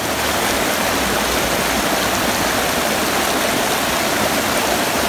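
Creek water rushing over and between boulders in small cascades: a steady, loud rush of water.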